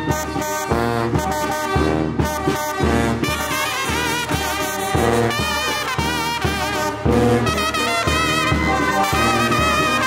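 Small wind band of trumpets, clarinet and soprano saxophone with a bass drum playing a Guerrero jarabe. The horns play with a wavering vibrato over a steady low beat.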